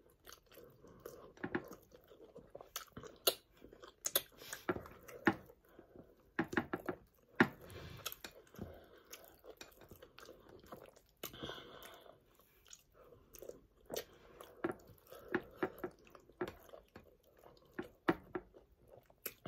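Close-miked chewing and wet mouth noises of someone eating pounded yam and spinach sauce with snail and fish, with irregular short clicks and smacks.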